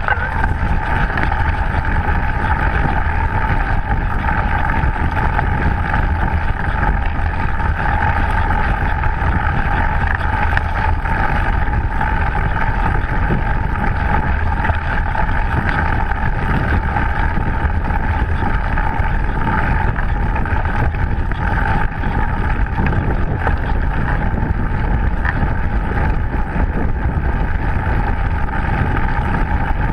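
Steady wind rush and low rumble on a bike-mounted camera's microphone as a mountain bike rolls fast over a dirt forest trail.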